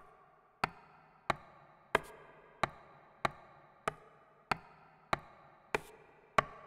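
Recorded samples of vegetables being chopped, triggered from a software sampler about one and a half times a second, about eleven chops in all. Each is a sharp chop that dies away quickly. Each key press plays a different, randomly picked chop sample from the sampler's list, so the chops vary slightly from one to the next.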